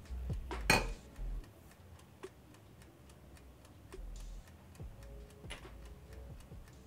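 Quiet handling of cutlery: a metal spoon clinks against a ceramic bowl about a second in. Later come a few faint taps as a fork presses the edges of pastry dough against the countertop.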